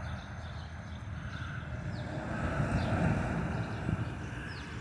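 Distant engine rumble, swelling slightly and easing off, with a few faint, short bird chirps.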